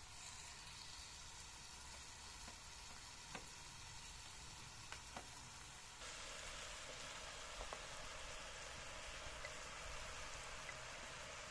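Chicken pieces frying in a pan over a wood fire, with a steady sizzle that gets louder about halfway, as sliced mushrooms are tipped in from a metal tray. A few faint clinks.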